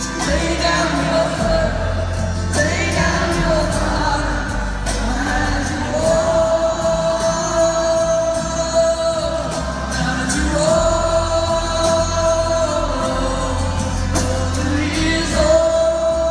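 Live band music with singing, as heard in a large arena: a sung line holding long notes of two or three seconds each over a steady bass and drum beat.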